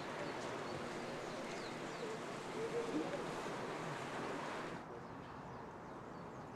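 Steady outdoor background noise with faint distant voices. The sound drops abruptly and gets duller about five seconds in.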